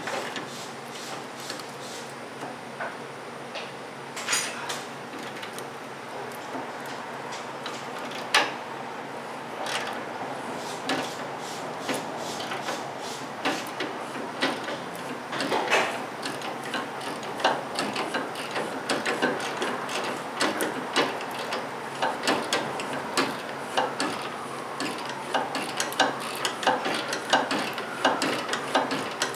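Hand ratchet wrench clicking in short runs as a 19 mm bolt is backed out; the clicks are scattered at first and come thicker and faster in the second half.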